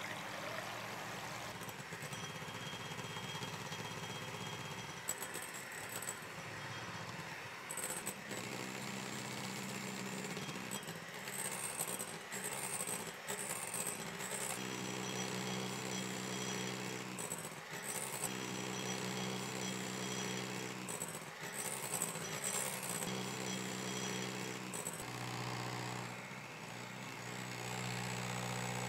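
Electric mixer running steadily, its beaters whipping egg whites into a stiff foam in a glass bowl, with scattered clicks and rattles. The motor tone grows stronger about halfway through.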